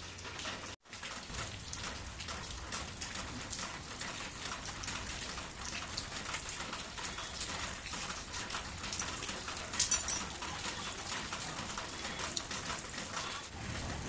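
Steady rain pattering on a surface, with one sharp clink about ten seconds in as work goes on at the engine.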